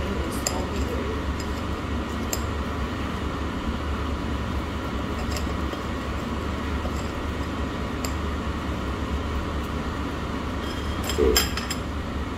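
Cutlery and tableware clinking now and then over a steady low hum of room noise, with a louder clatter of clinks near the end.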